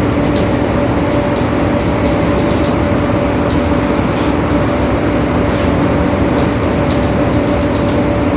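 Mercedes-Benz OF-1721 Bluetec 5 bus running at a steady speed: its four-cylinder diesel and drivetrain hold an even drone with a steady tone, and the differential is growling. Light clicks and rattles come through the whole time.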